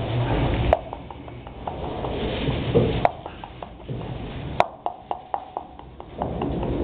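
English pointer puppies scrambling about in straw: rustling with a series of sharp clicks and knocks, several in quick succession in the second half.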